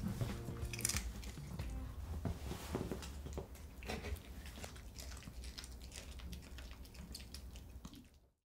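A small dog chewing a morsel of food hand-fed to it, among scattered soft clicks and taps. The sound fades out near the end.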